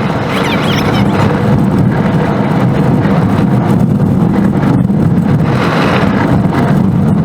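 Car driving on the road: a steady low rumble of tyres and engine, with hissing swells about half a second in and again near six seconds.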